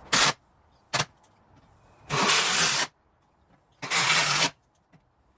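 Cordless power driver running in short bursts, driving screws: two quick blips, then two longer runs of under a second each, and another starting at the very end.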